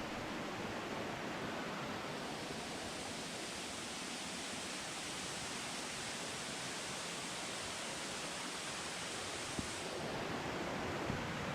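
Waterfall rushing, a steady, even noise; it takes on a brighter hiss from about two seconds in until near the end.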